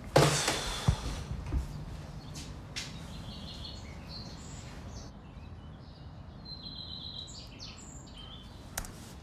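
Small birds chirping faintly in short, high, scattered calls. Before them comes a sudden loud noisy burst right at the start, fading within about a second, with a couple of knocks.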